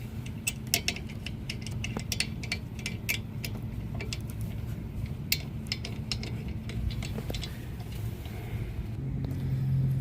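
Wrench working a brake caliper bolt, giving a run of short, irregular metallic clicks that thin out after about seven seconds. A steady low hum runs underneath and grows stronger near the end.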